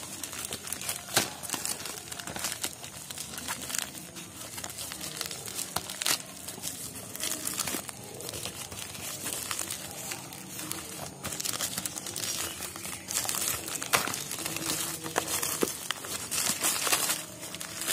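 Thin plastic courier mailer and its bubble-wrap lining being torn open and crumpled by hand: continuous crinkling and crackling, with louder rips now and then.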